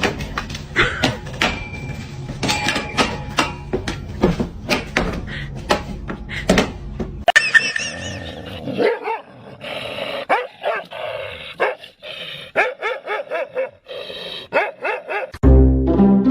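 A pet animal gives repeated short pitched calls, after a stretch of quick clicks and knocks. Music with low bowed strings comes in near the end.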